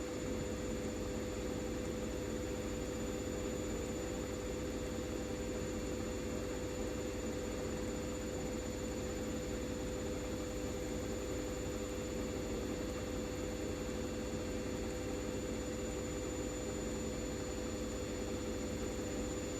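Hoover Dynamic Next DXC C49W3 washing machine running its spin cycle: a steady hum with a steady mid-pitched tone and a thin high whine, unchanging throughout.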